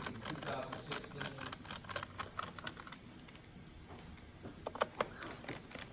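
Typing on a laptop keyboard: irregular key clicks, quieter for a moment past the middle, with two louder clicks near the end.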